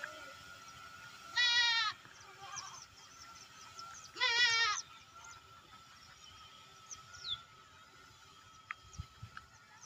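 Bleating livestock: two wavering, quavering calls, one about one and a half seconds in and one about four seconds in, each about half a second long, over a faint steady hum.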